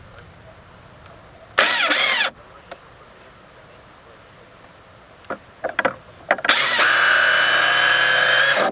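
Small RC boat motor whining in two bursts of throttle. The first is short and rises and falls about a second and a half in. The second is longer and steadier, from about six and a half seconds in, with a few clicks just before it.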